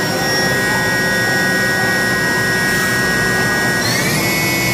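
Haas VF-2SS super-speed CNC mill spindle running with no load at about 7,500 rpm, a steady high whine. Near the end its pitch rises quickly and settles higher as the spindle speeds up toward 10,000 rpm.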